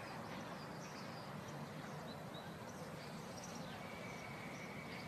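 Steady background hiss with faint, scattered high chirps; a thin, steady high whine comes in near the end.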